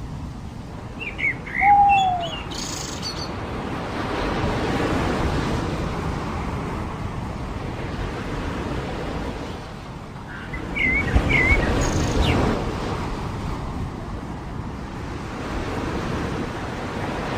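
Surf washing ashore in slow swells, with short bird chirps and a slurred call over it, about two seconds in and again around eleven seconds.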